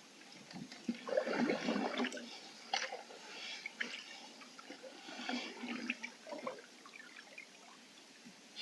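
Canoe paddle stroking through calm water: a swirl and splash of the blade, then drips and trickles as it comes out, with smaller strokes that fade away toward the end.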